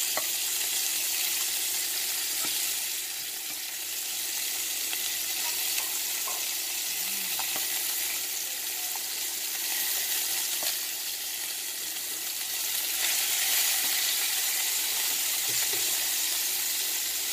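Chicken pieces sizzling steadily as they fry in oil in a nonstick pan. A spatula knocks and scrapes lightly a few times as it turns them.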